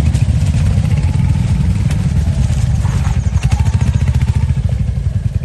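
Royal Enfield Hunter 350 single-cylinder motorcycles running over a rough dirt trail, heard from on a bike: a loud, steady low engine rumble with clatter through it.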